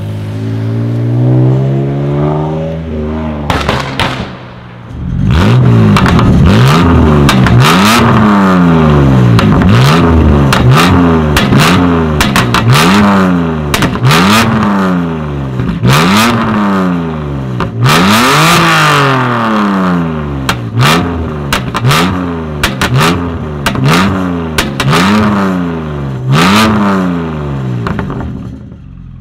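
BMW M2 Competition's twin-turbo straight-six, breathing through Akrapovic downpipes and exhaust. First it accelerates away with its pitch climbing. Then, standing still, it is revved over and over about once a second, with sharp pops and cracks from the exhaust.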